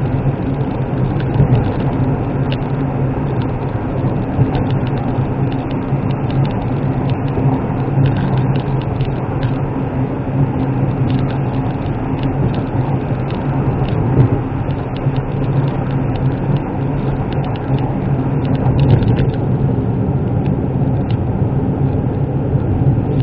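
Cabin noise of a Suzuki Wagon R (MH23S) driving at a steady speed: its 660 cc three-cylinder engine runs under a steady hum of road and tyre noise, heard from inside the car as it passes through a road tunnel.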